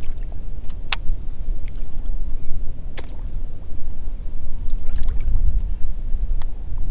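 Steady low rumble of wind buffeting the microphone and water around a fishing kayak, with three sharp clicks: about a second in, at three seconds and just after six seconds.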